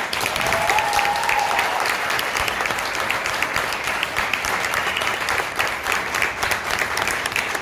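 An audience applauding: many people clapping at once, starting suddenly and keeping up throughout.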